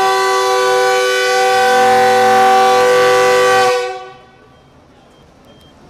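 A GEU-40 diesel-electric locomotive's air horn giving one long blast, a steady chord of several tones, sounded as the train stands ready to depart. It cuts off sharply a little over halfway through.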